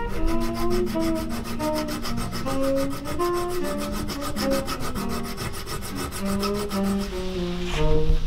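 Hand filing on a knife blade clamped in a bench vise, a steady rubbing rasp, over background instrumental music playing a melody.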